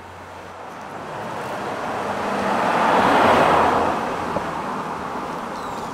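A car passing by: the noise of its tyres and engine rises, peaks about three seconds in, and fades.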